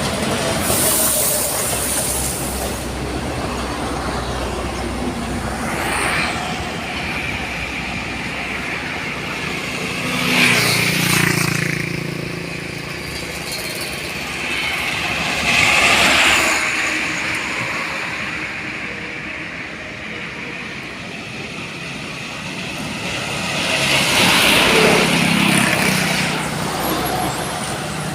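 Road traffic passing close by, one vehicle after another, each one swelling and fading as it goes past. The loudest pass-bys come about ten, sixteen and twenty-five seconds in, and the one at ten seconds carries a heavy, low engine note.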